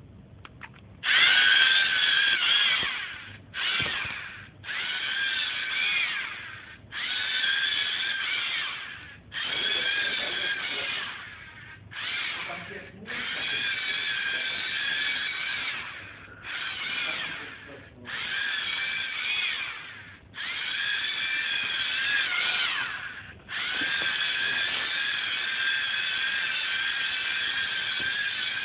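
LEGO Mindstorms NXT robot's electric servo motors whining through their gears as it drives, in about a dozen runs of one to four seconds with short pauses between, the first starting about a second in.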